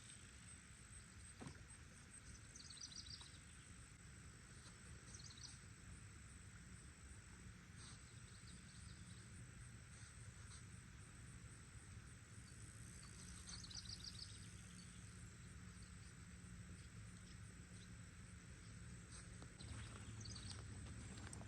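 Near silence: faint outdoor ambience with a steady high insect drone and a few short trilling chirps now and then, over a low rumble.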